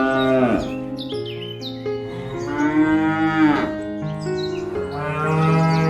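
Cattle mooing: three long calls, each bending down in pitch at its end, over soft background music.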